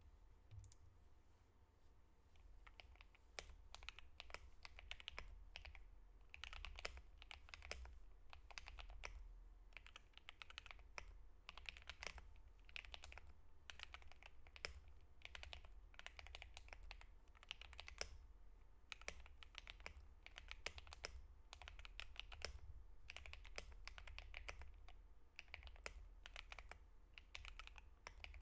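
Typing on a mechanical keyboard fitted with Akko Radiant Red linear switches: quiet, fast runs of keystrokes that start about two and a half seconds in, with a steady low hum underneath.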